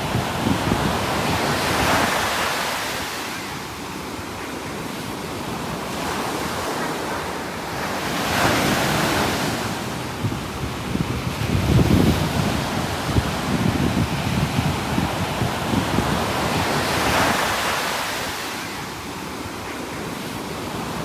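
Ocean waves breaking and washing on the shore, the surf swelling and easing every few seconds, with wind buffeting the microphone.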